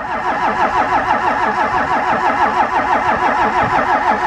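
Starter motor cranking the cold 5.9 L 12-valve Cummins diesel of a Dodge W250, a steady rhythmic turning over that never catches and stops abruptly at the end. The owner puts the hard start down to thick 15W-40 oil in the cold, the truck not being plugged in, and a leaking O-ring on the fuel filter housing.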